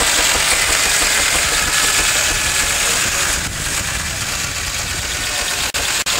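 Large circular saw blade on a steam-engine-driven log sawbench cutting through a log, a steady loud rasping whine over the running machinery.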